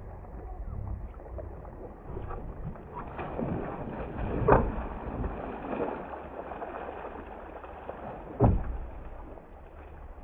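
Hooked bass thrashing and splashing at the surface right beside the boat as it is netted, with two loud sharp hits, one near the middle and one near the end.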